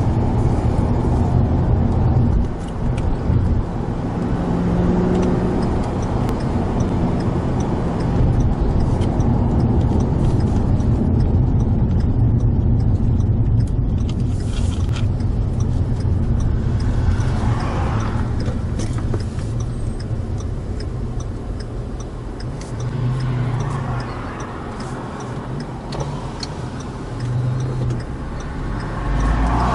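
Cabin sound of an FPV GT-F cruising on the highway: its supercharged 5.0-litre V8 running steadily under a drone of road and tyre noise. It eases off and goes quieter late on, picking up again near the end, with a light regular ticking in the second half.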